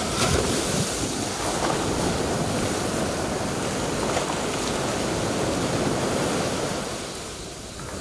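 Sea surf washing onto a shore, a steady rush of water with a few splashes of feet wading through the shallows. It grows quieter just before the end.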